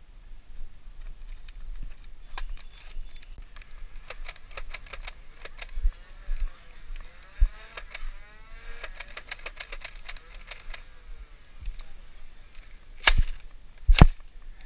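Foam-dart toy blaster firing: a long run of rapid sharp clicks, then two loud sharp shots about a second apart near the end.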